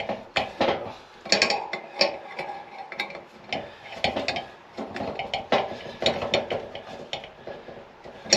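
Hand tools and small steel parts clinking and clattering in irregular knocks, as a nut and a small bracket are worked with a wrench.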